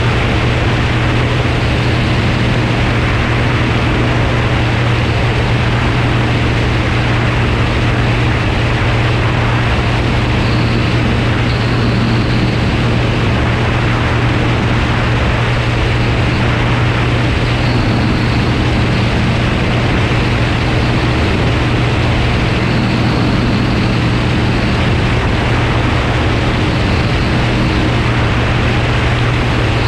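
Light floatplane's propeller engine running steadily in level flight, a constant low drone with the rush of air over an outside-mounted camera.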